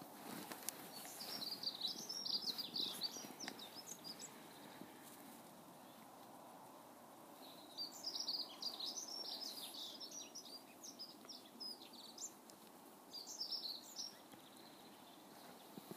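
Small birds chirping and twittering in quick high bursts: once in the first few seconds, again for several seconds from about halfway, and briefly near the end, over faint steady outdoor background noise.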